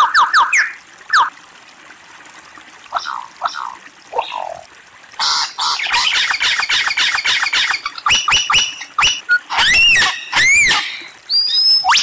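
Lyrebird singing a varied sequence of whistled calls: a few scattered notes at first, then a fast run of repeated notes about halfway, then several different sweeping calls, ending in a rising whistle.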